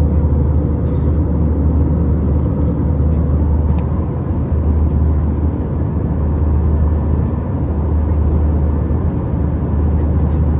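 Steady rumble of jet engines and airflow heard inside the passenger cabin of a jet aircraft in flight, deep and even, with a faint steady hum above it.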